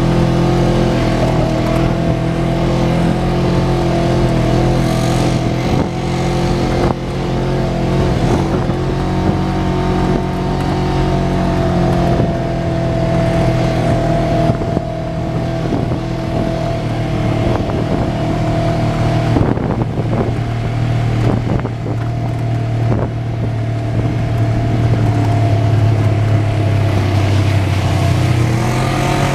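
Side-by-side UTV engine running at a steady pitch while driving along a dirt trail, heard from inside the open cab, with occasional knocks and rattles.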